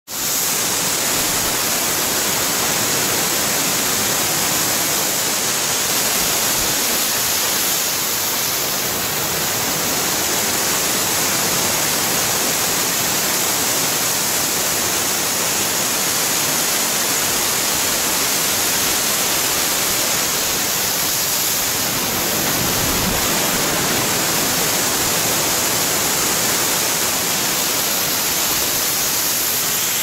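Waterfall cascading over limestone rocks close by: a loud, steady rush of falling water.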